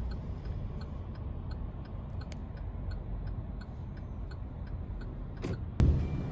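Low road rumble inside a car cabin, with the turn-signal indicator ticking evenly about two and a half times a second. A single sharp thump comes near the end.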